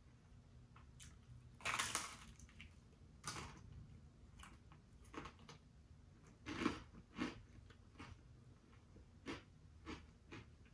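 A person biting into and chewing a slice of cheese pizza: irregular chewing noises, with louder bites about two seconds in and again near the middle.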